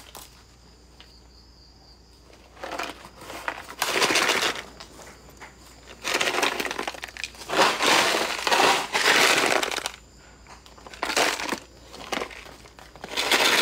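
Crinkling and rustling handling noise close to the microphone, in several bursts of a second or two after a quiet first couple of seconds.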